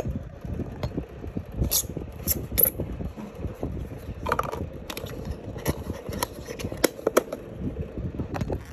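Handling and unboxing noise from an LG Tone Free earbuds' cardboard retail box: irregular scrapes, rustles and sharp clicks as the box is opened and the plastic charging case is lifted out.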